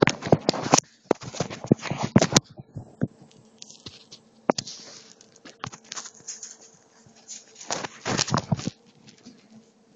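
Scraping, rustling and clicking right on the phone's microphone as a Japanese Chin puppy's fur and paws brush against it. It is dense at first, thins out after about two and a half seconds into scattered clicks, and comes back in a second dense burst near the end.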